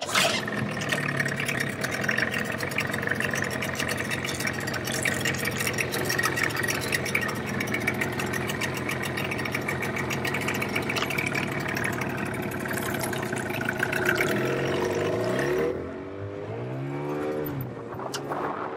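Yamaha 15 hp Enduro two-stroke outboard motor running steadily, driving the dinghy under way. In the last few seconds it drops quieter and its note dips and rises as the engine speed changes.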